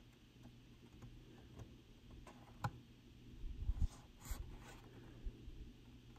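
Faint handling of a Hot Wheels car's plastic blister pack on its card: scattered small clicks and crinkles, with a few low thumps about three and a half seconds in.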